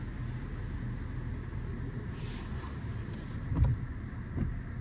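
LaserWash 360+ touchless car wash running: a steady low rumble, with a sharp knock about three and a half seconds in and a softer one shortly before the end.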